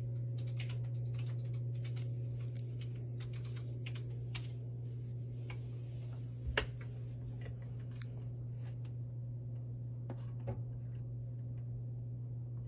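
Light irregular clicking and tapping, like fingers on a keyboard, over a steady low hum, with one louder knock about six and a half seconds in.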